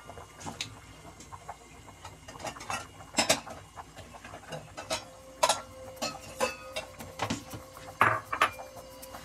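Irregular clinks and knocks of cookware and utensils at a stovetop pot, the sharpest about three, five and a half and eight seconds in. A faint steady tone sets in about halfway through.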